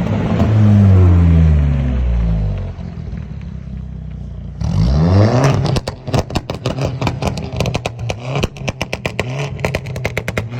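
Alfa Romeo MiTo Veloce's turbocharged four-cylinder engine, fitted with a TD04 turbo kit, revving: the revs fall away, then it is blipped again about halfway through. As the revs drop off, the exhaust lets out a rapid string of pops and crackles on the overrun.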